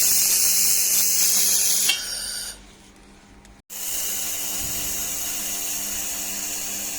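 Handheld wire-feed laser welder welding stainless steel: a steady hiss with a faint hum underneath. It stops about two seconds in, then after a short quiet gap starts again and runs on.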